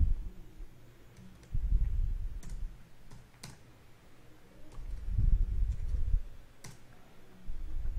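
Computer keyboard typing in three short bursts of dull key thuds, with a few separate sharper clicks between them.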